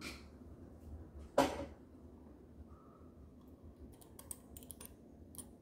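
Hand handling noises at a stopped sewing machine's needle area: a brief scrape about one and a half seconds in, then a quick run of light clicks near the end.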